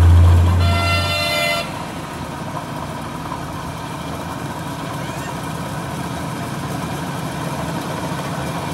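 Metal lathe running steadily with a workpiece spinning in its chuck. A vehicle horn toots once for about a second near the start, and a heavy low hum fades out at about the same time.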